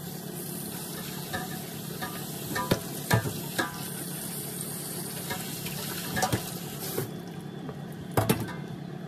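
Plastic spatula spreading a thick, wet creamy mixture over graham crackers in a pan: a steady soft smearing sound with a few clicks and taps of the spatula against the pan, the smearing stopping about seven seconds in. A low steady hum runs underneath.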